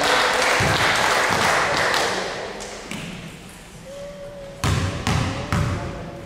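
Mixed crowd voices in a gym for the first two seconds, then a basketball being dribbled, three bounces about half a second apart near the end.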